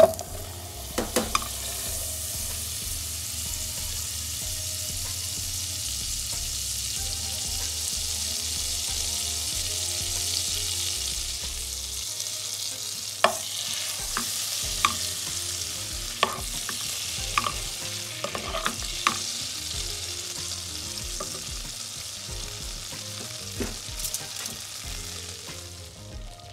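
Butter sizzling as a block melts in a hot non-stick pan, a steady hiss. A sharp knock comes right at the start, and a handful of short clicks later on come from a spatula against the pan.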